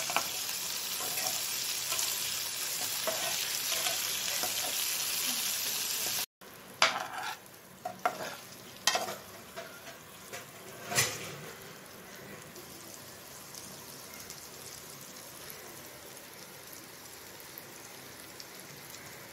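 Hard-boiled eggs frying in spiced oil in a pan, sizzling steadily. About six seconds in the sizzle drops abruptly to a quieter level, and over the next few seconds a slotted metal spatula knocks and scrapes against the pan several times as the eggs are turned.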